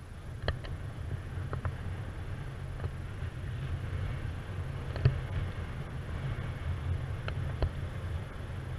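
Wind rushing over a paraglider pilot's camera microphone in flight, a steady low rumble, with a few sharp clicks scattered through it.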